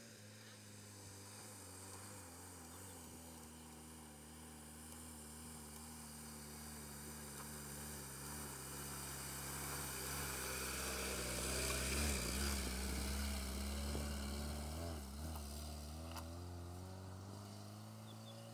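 Lada Niva's engine pulling steadily as the 4x4 climbs a grassy hillside track, growing louder as it passes close about two thirds of the way in, then easing off as it drives away uphill.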